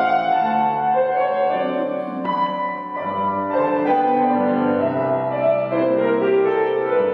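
Grand piano playing classical music: a melody over held chords.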